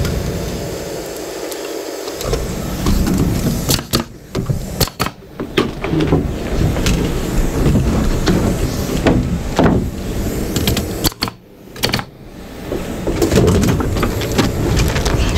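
Carpentry work on a wood wall frame: scattered knocks and clatter of studs and a framing nailer being handled, over a steady low rumble.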